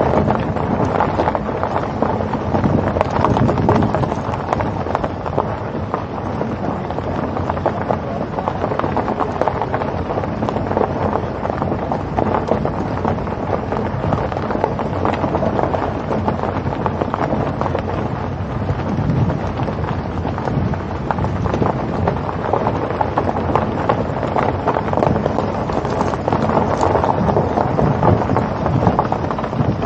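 Steady, rumbling wind noise buffeting the microphone while moving along a road, crackling throughout, with road noise underneath.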